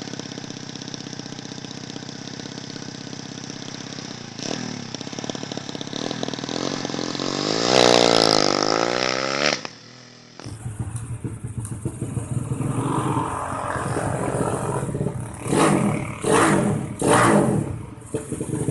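Motorcycle engine running, then revved up hard, its pitch climbing to a high peak before it cuts off suddenly about nine and a half seconds in. After a short gap, another motorcycle engine is blipped in several short, sharp revs.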